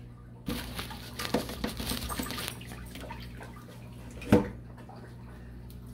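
Aquarium water splashing and sloshing for about two seconds, then one sharp knock or splash a little after four seconds.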